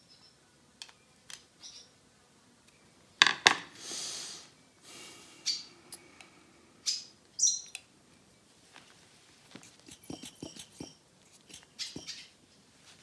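Scattered clicks and knocks from handling small engine parts and fuel lines around a quad bike's carburetor, with a sharp double knock a little over three seconds in followed by a brief hiss, and a short high chirp about seven and a half seconds in.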